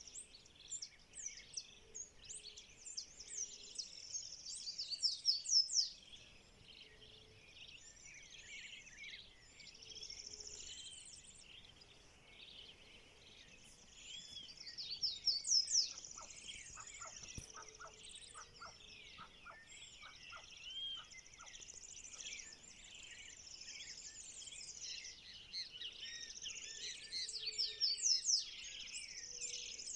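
Dawn chorus of many birds calling and singing at once, a dense mix of chirps, whistles and trills. Louder bursts of rapid trilling swell up three times, about ten seconds apart.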